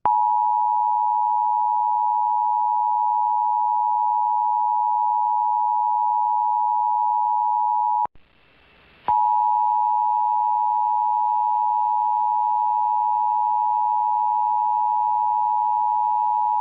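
Emergency Alert System attention signal: the steady two-tone alarm broadcast during a required monthly test. It cuts out for about a second roughly halfway through, then resumes.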